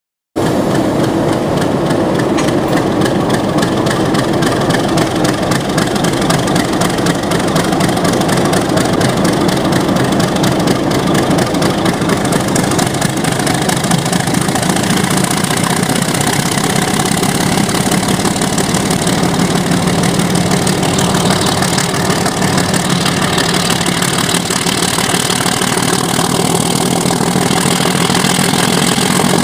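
KTMB YDM4 diesel-electric locomotive's six-cylinder ALCO 251 engine running loud and steady with a fast firing beat, heard close from the locomotive, working hard enough to throw thick black exhaust smoke.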